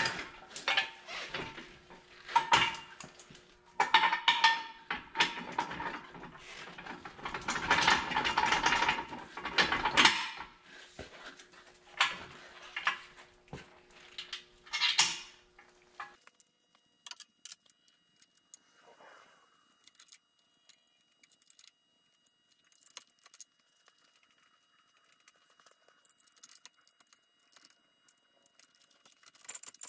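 Steel three-point hitch parts and a quick hitch clanking, clinking and scraping as they are handled and fitted, dense through the first half; after about halfway only faint scattered clicks remain.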